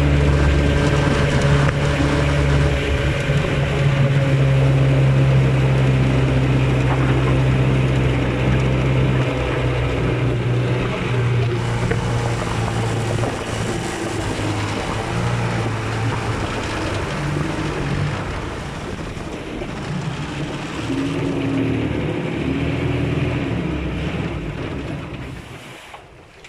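Vikhr-25 two-stroke outboard motor running steadily under way, driving an aluminium Kazanka boat along a river. It gets somewhat quieter in the second half and cuts off suddenly near the end.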